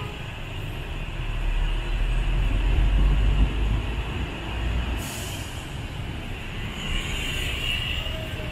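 City bus passing in street traffic: a low engine rumble, then a short burst of air-brake hiss about five seconds in.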